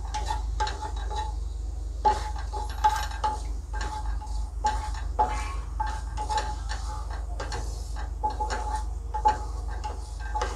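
A wooden spatula stirring and scraping cumin seeds around a ceramic-coated kadhai as they sauté in oil. It makes a run of irregular light scrapes and taps against the pan, over a low steady hum.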